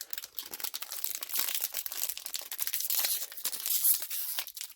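Foil trading-card booster pack wrapper being torn open and crinkled, a dense crackling rustle.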